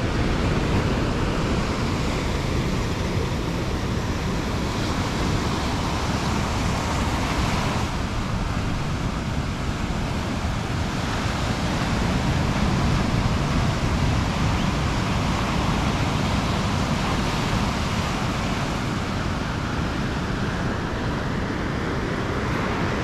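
Steady rush of wind and sea water, with wind buffeting the microphone.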